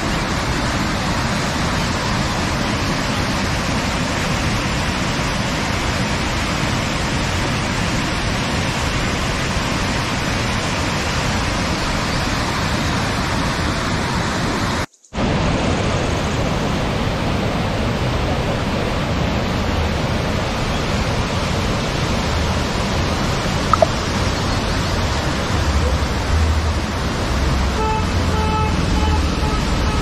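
Charpa Falls, a large waterfall in heavy monsoon-season flow, rushing and crashing over rocks in a steady, dense roar, with the sound cutting out abruptly for an instant about halfway through. Near the end a passing vehicle's low engine rumble joins in.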